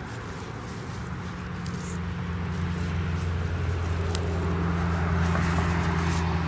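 A car passing nearby: a steady low engine hum that builds over several seconds and begins to ease off near the end. A single sharp click comes about midway.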